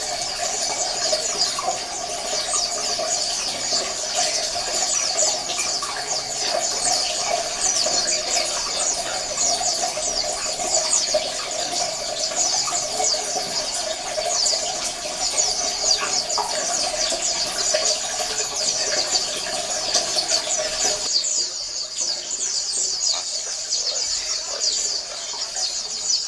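A colony of white-eyes (pleci) chirping and twittering all at once, many high, quick overlapping calls in a continuous chorus. A steady low hum underneath cuts off abruptly about three-quarters of the way through, while the birds carry on.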